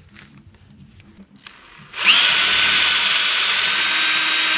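A power drill starts about halfway through, whining up to speed and then running steadily as its bit drills out an aluminum rivet in an aluminum tube. Before it, a few faint handling clicks.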